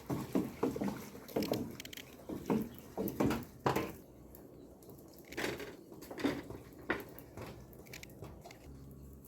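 A run of irregular knocks and clatter, dense for the first few seconds and then sparser, typical of pots, pans or wood being handled.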